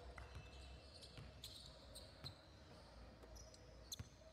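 Faint basketball dribbling on an indoor court: a few sharp bounces over low background noise.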